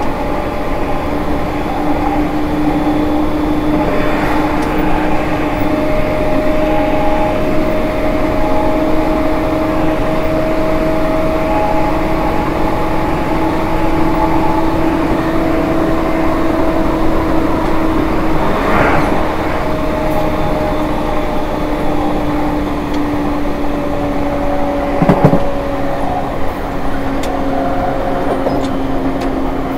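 Electric commuter train running on the move, heard near the gangway plates: the original, unrenewed Hitachi IGBT-VVVF inverter and traction motors give two steady tones that rise slightly and then sag a little in the second half, over a constant rolling rumble. A sharp knock comes about 19 seconds in and a louder clank about 25 seconds in.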